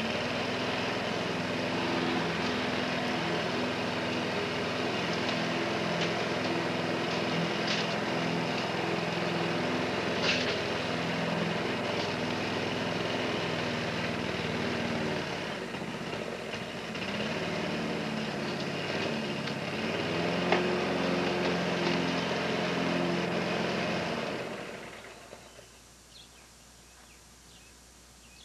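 Walk-behind rotary lawn mower's small gasoline engine starting up and running steadily, with a few sharp cracks of rocks struck by the blade and flung out. The engine is shut off a few seconds before the end and winds down over about a second.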